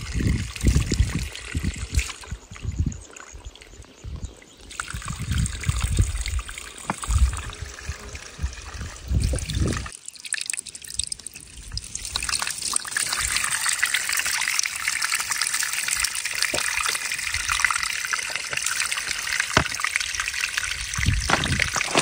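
Spring water trickling and splashing from the mouth of a plastic pipe into cupped hands. Uneven low rumbling bursts run through the first ten seconds; after that the trickle goes on as a steady hiss.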